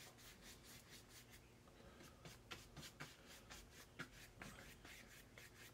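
Faint scratchy strokes of a cheap paintbrush dabbing and dragging watercolor paint across paper, an uneven run of short strokes with a few slightly louder ones midway.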